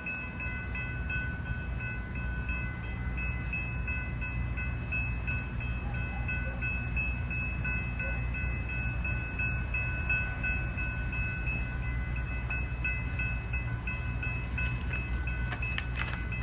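Railroad grade-crossing warning bell ringing steadily in repeated dings, over a steady low rumble.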